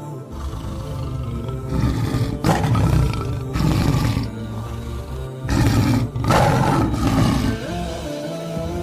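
A large animal giving several long, rough roaring calls, about three in a row, over background music.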